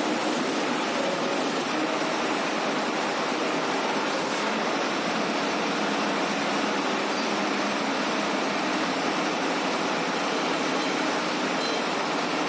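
Milling-rotor snowblower running: a steady, even rushing noise with a faint hum of its engine underneath.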